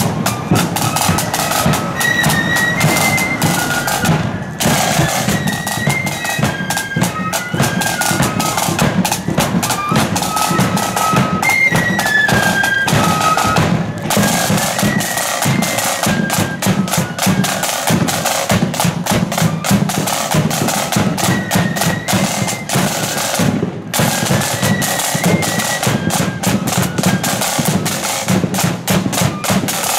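Marching flute band playing a tune: flutes carry a high melody over rapid snare drumming and the beat of the bass drum.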